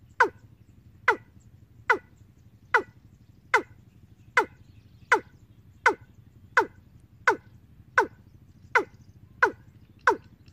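Recorded 'ayam tembaga' bird lure call played through a bird-trapping amplifier and loudspeaker: a short downward-sweeping note repeated evenly about every three-quarters of a second.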